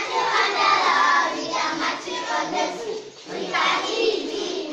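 A group of schoolchildren singing together in many overlapping voices as they march in line.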